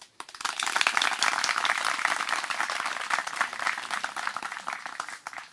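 A seated crowd applauding, many hands clapping fast. It starts just after the beginning, is fullest in the first two seconds, and dies away near the end.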